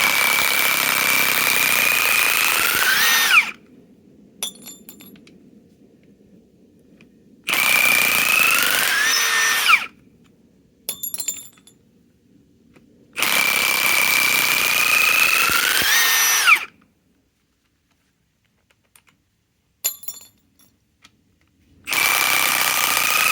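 Milwaukee M18 Fuel 2967-20 high-torque impact wrench on speed 3 hammering lag screws out. There are three runs of a few seconds each and a fourth that starts near the end, each with a whine that rises in pitch as the run finishes. Light clicks and rattles fill the gaps between runs.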